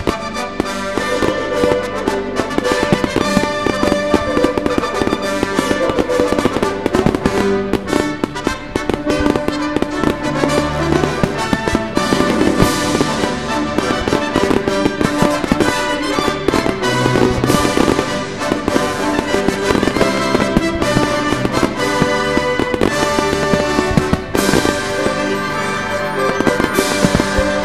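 Fireworks going off, many sharp bangs and crackles one after another, over loud music.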